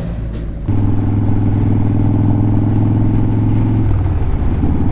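Motorcycle engine running steadily. It gets suddenly louder about a second in, and its note changes near the end.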